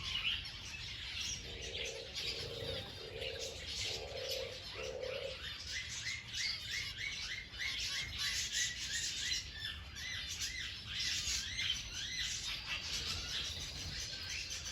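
Several birds chirping together. A dove coos about five times in the first few seconds, and another bird then repeats a short note several times a second for about six seconds.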